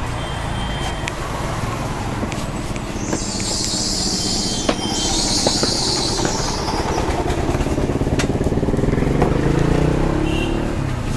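A motor vehicle engine, motorcycle-like, runs steadily and then rises in pitch and gets louder about eight to ten seconds in, as if passing close by. Two long hissing sounds come in the middle.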